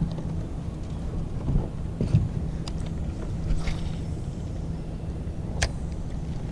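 Boat motor running steadily as a low hum, with a few light clicks from handling the spinning rod and reel.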